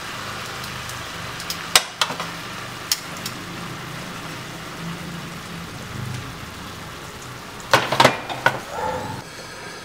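Whole chicken sizzling in an electric skillet, a steady hiss of fat and juices. A few sharp clicks early on and a loud cluster of metal clacks about eight seconds in, as metal tongs grip the chicken and turn it over against the pan.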